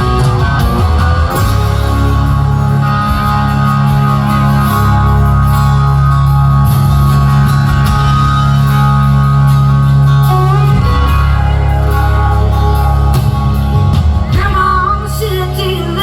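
Rock band playing live: electric guitar holding long notes over bass and drums in an instrumental passage, with a voice singing near the end.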